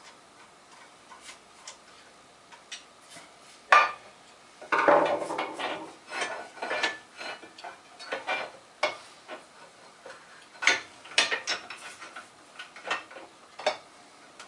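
Metal vise parts, the steel lead screw and cover plate, being handled and fitted together: a sharp knock about four seconds in, a second or so of scraping rattle, then a run of irregular metal clinks and knocks.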